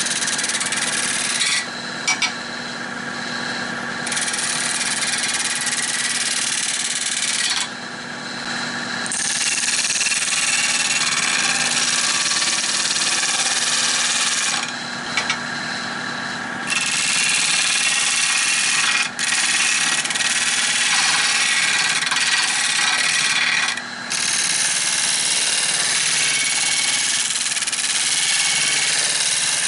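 Nova 16/24 wood lathe running steadily while a tool cuts against the spinning redbud blank, giving a dense hissing scrape. The scrape breaks off several times for a second or two as the tool is lifted away, leaving just the hum of the lathe.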